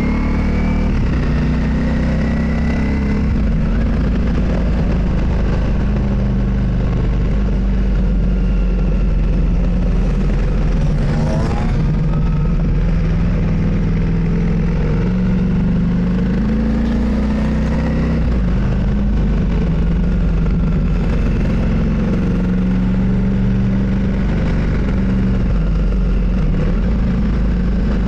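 Motorcycle engine running on the move, its pitch rising several times as it accelerates, over a steady low rumble.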